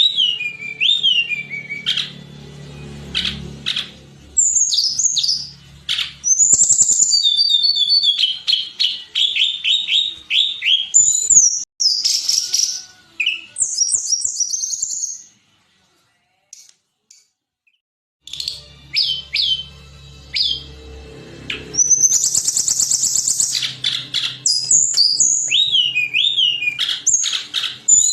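Tledekan gunung singing: quick, high whistled phrases, rising and falling slurs and rapid trills, strung together. It breaks off for a couple of seconds just past the middle, then resumes. A faint low hum runs under the song in the first and last parts.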